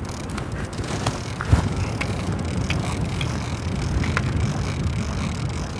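Steady low rumble of a fishing boat's outboard motor, with wind buffeting the microphone and choppy water against the hull, and a few short sharp knocks.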